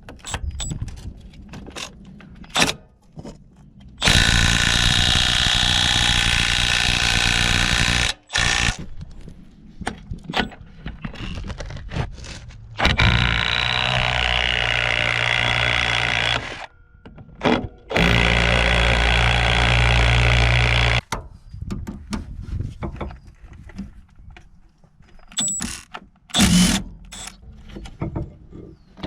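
Milwaukee M12 Fuel right angle impact wrench hammering in three long runs of about three to four seconds each, with short clicks and knocks between them.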